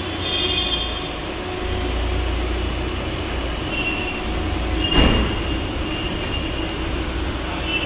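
Steady low rumble of car-workshop machinery with a few faint high squeaks, and one sharp metallic clank about five seconds in.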